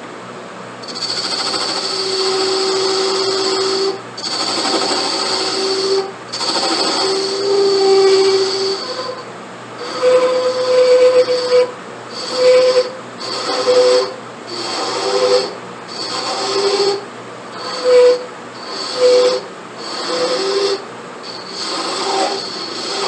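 Power tool running in repeated short bursts, about one every second and a half, its pitch dropping within each burst as it bears on the work.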